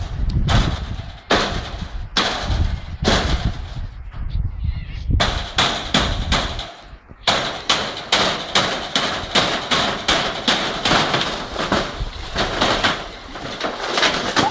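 A rapid run of sharp knocks and cracks. They are spaced out at first, then come several a second from about halfway through.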